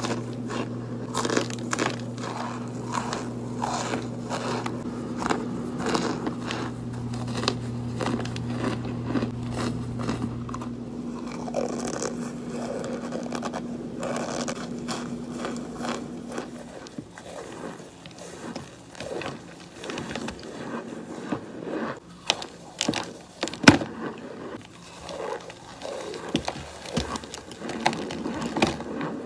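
Chunks of pressed cornstarch bitten and chewed close to the microphone: repeated crumbly crunches and crackles. A steady low hum under them stops partway through.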